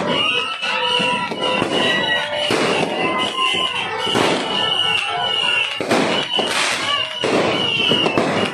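New Year's fireworks in the street: ground fountain fireworks hissing and crackling, with several loud firecracker bangs through it and high wavering tones over the din.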